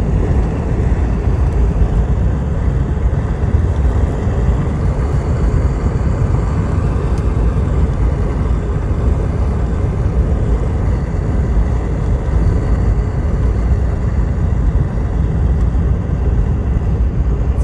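Steady low rumbling noise that holds at the same loudness throughout, with no single event standing out.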